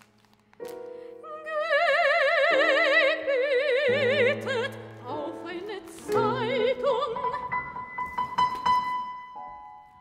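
Classical soprano singing long held notes with wide vibrato over sparse piano chords, in a contemporary art song for soprano and piano. Near the end a single high tone is held while the piano strikes softly, then the sound fades.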